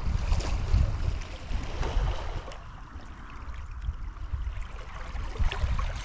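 Wind buffeting the microphone in an uneven low rumble, over the faint wash of the sea.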